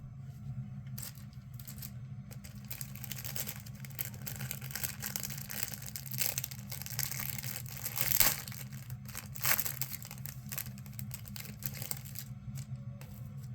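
Plastic wrapper of a baseball-card rack pack being crinkled and torn open by hand, an irregular crackling that is loudest about eight and nine and a half seconds in, over a steady low hum.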